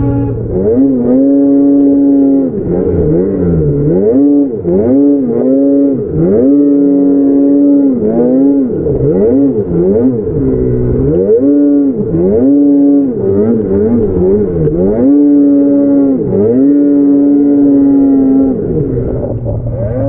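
Snowmobile engine revving up and down over and over as the throttle is worked, about a dozen surges with short dips between them, heard from on board the sled.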